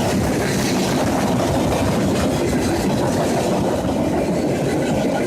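Freight cars of a long CSX train rolling past on the rails: a steady, loud rumble of wheels on track with clattering.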